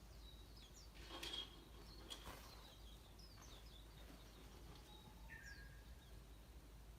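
Wild birds chirping faintly, a scatter of short high chirps and quick whistled notes. Two brief soft rustles or knocks come about one and two seconds in.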